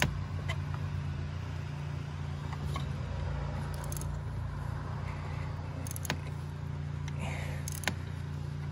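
A few isolated sharp metallic clicks and knocks from a ratchet on a long extension with a spark plug socket, loosening a tight spark plug. They sit over a steady low hum.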